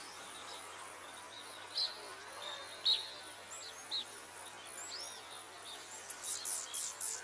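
Outdoor ambience of a steady high-pitched insect drone with scattered short bird chirps, ending in a quick run of sharp, high chirps.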